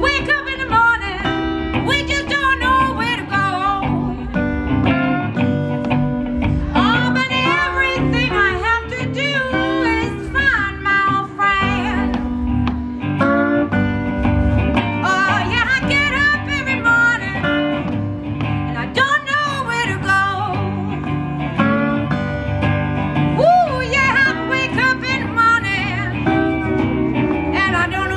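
Improvised blues jam: a cigar box guitar and a Stratocaster electric guitar playing together, with a woman singing.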